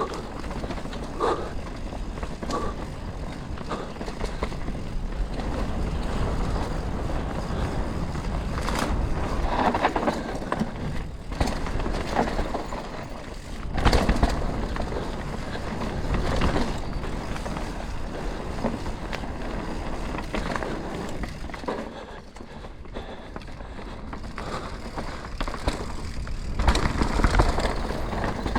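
Canyon Spectral 125 full-suspension mountain bike descending a dirt trail: tyres rolling and crunching over the rough ground, with frequent rattling knocks as the bike hits bumps, and a low rumble of wind on the camera microphone.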